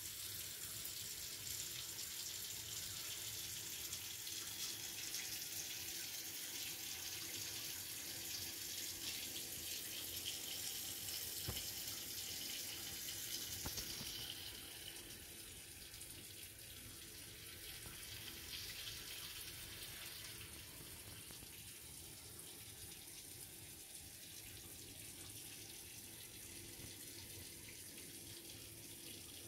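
Steady hiss of running water, a little louder for the first half and dropping about halfway through.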